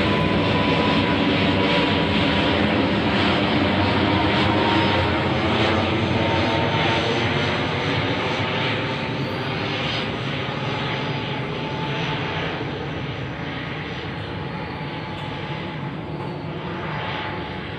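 Airplane engines droning overhead as the plane flies past. The drone fades over the second half, its pitch sinking slightly as it moves away.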